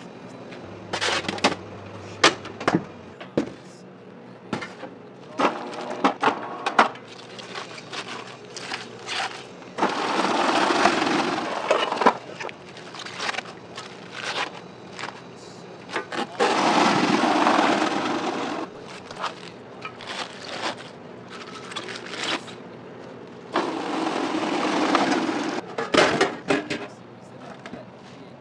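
Vegetable prep in steel kitchen pans: crisp clicks, cracks and knocks of onions and lettuce being handled, broken by three bursts of rushing noise about two seconds long, roughly seven seconds apart.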